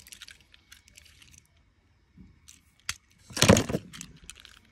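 Small toy trains and plastic balls being handled, giving scattered light clicks and a louder clatter about three and a half seconds in.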